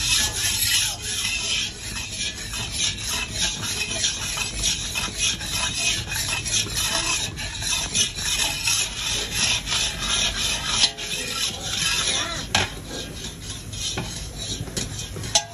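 Long metal spatula scraping and stirring against the bottom of a large metal kadai of frothing milk, in quick repeated strokes. In the second half there are a few sharper knocks of metal on metal.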